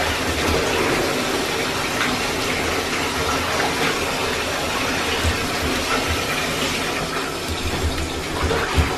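Water running steadily into a bathtub as it fills.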